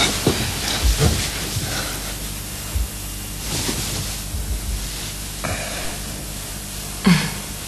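Steady hiss of an old television recording, with a few soft knocks and rustles of movement scattered through it.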